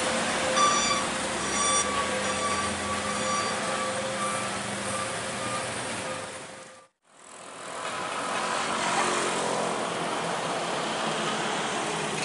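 Heavy trailer truck engine labouring up a steep grade amid traffic, with a few short high beeps early on. The sound dips out about seven seconds in, then returns as steady traffic noise from trucks, a car and motorbikes.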